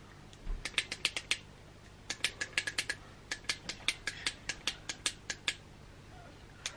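Repeated clicking of a YSL Touch Éclat concealer pen's push button, in quick runs of several clicks with short pauses between, pumping concealer up to the brush tip.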